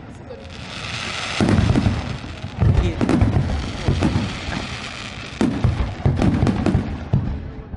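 Fireworks going off in quick succession: about half a dozen booming bursts with crackle, easing off near the end.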